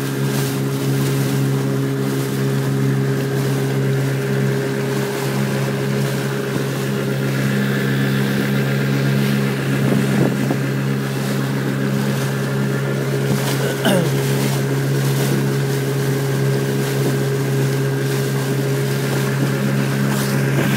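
Motorboat engine running at a steady cruising drone, with wind on the microphone and the hiss of water along the hull.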